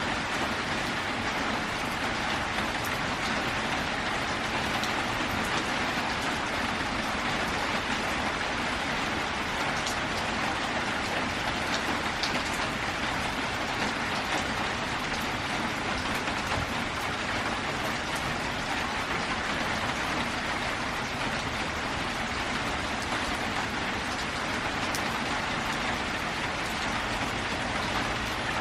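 Steady downpour of rain drumming on a metal roof.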